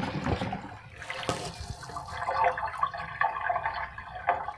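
Water running and gurgling through a homemade toilet's drain, with a few scattered clicks and knocks.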